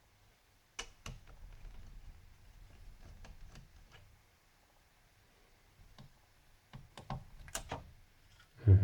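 Scattered small clicks and taps of a screwdriver and small metal screws as a laptop's heat-sink screws are undone and the heat sink is worked loose, with a quiet pause in the middle.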